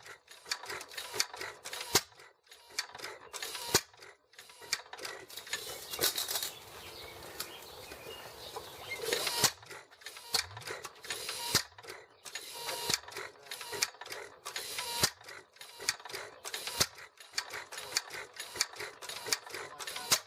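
Irregular metallic clicks and clatter of hands-on work at an antique hit-and-miss farm engine, with no steady engine running.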